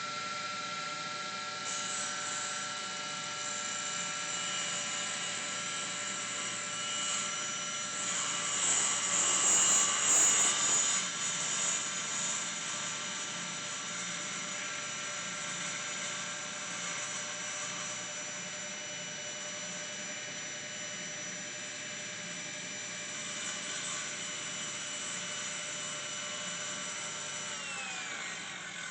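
An electric power tool's motor running steadily, louder and rougher for a few seconds about eight to eleven seconds in, then switched off and winding down, its whine falling in pitch near the end.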